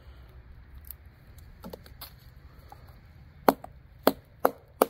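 A Survive Knives GSO 4.5 bushcraft knife chopping into a thin wooden stick laid on a log. A few faint light clicks come first, then four sharp knocks in quick succession near the end.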